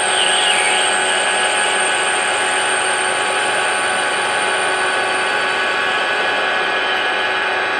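Metalworking centre lathe running under power, a steady mechanical hum and whine with several steady tones, while a knife tool is fed across the workpiece face taking a 0.5 mm facing cut. A high thin tone fades out about two-thirds of the way through.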